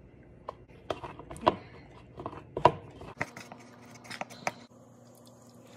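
Plastic measuring spoon tapping and scraping against a plastic mixing bowl in a string of short, sharp clicks as cornstarch is mixed into water for a thickening slurry.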